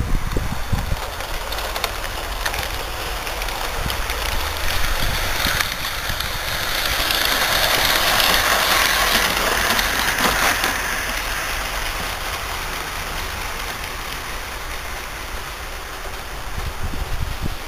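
LGB garden-scale model train rolling past on its track, a rushing wheel-and-rail hiss that swells as the coaches pass close by about halfway through, then fades as the train moves away.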